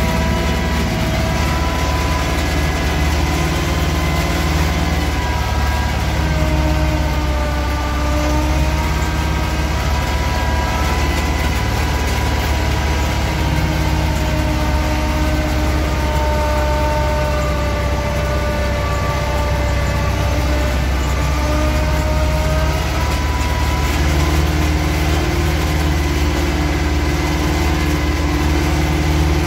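Yağmur YET 510 patpat's engine running steadily while it is driven along a dirt track, its pitch shifting slightly up and down with engine speed.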